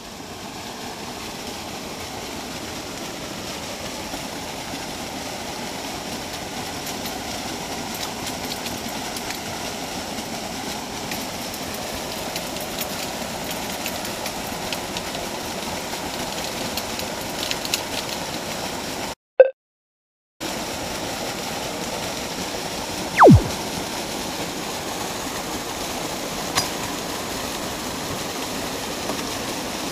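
Steady rush of water spilling over a weir outflow into the river. It cuts out to silence for about a second past the middle, and a short, loud falling whine sweeps down in pitch a few seconds later.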